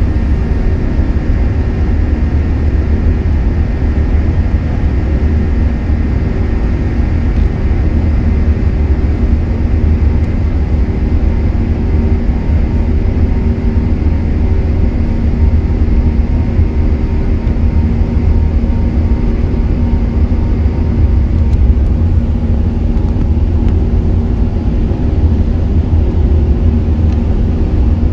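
Airbus A380's jet engines running steadily while it moves on the ground, heard inside the cabin over the wing: a deep, even rumble with a steady hum over it.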